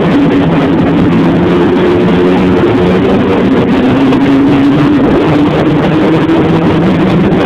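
Snowmobile engine running steadily under way, its pitch drifting slightly and rising a little in the second half, over a constant rushing hiss.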